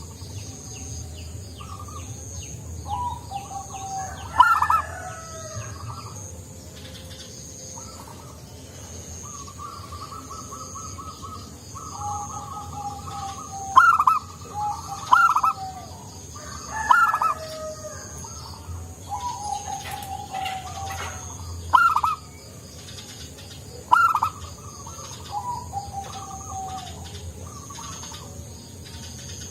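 Zebra dove cooing its rhythmic song, phrase after phrase, with a louder sharp note every few seconds. A faint high pulsing buzz runs underneath.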